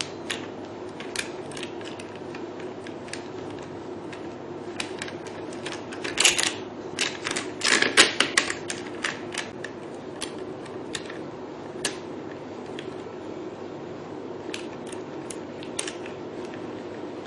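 Plastic beauty-machine handpieces and their holder clamps clicking and knocking as the handles are fitted and tightened, with a busy run of clicks about six to eight seconds in. A steady low hum runs underneath.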